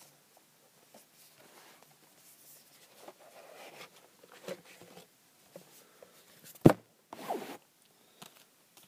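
Handling noise of DVD box-set packaging: intermittent rustling and scraping, with one sharp knock about three-quarters of the way in.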